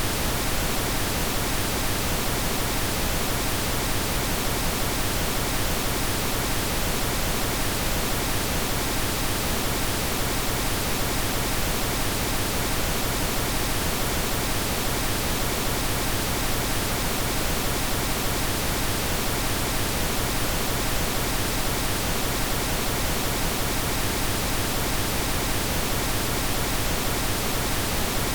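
Steady synthetic pink noise, an even hiss that does not change.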